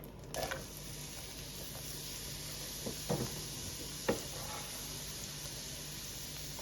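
Diced onions sizzling in melted butter and olive oil in a frying pan, the sizzle starting just as they go in. A few short knocks come from stirring around the middle.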